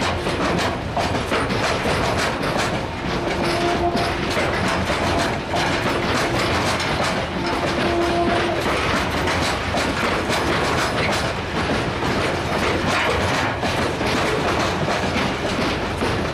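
Loaded ballast hopper wagons rolling past close by, their bogie wheels clattering steadily over the rail joints. A short steady tone sounds twice, about four and about eight seconds in.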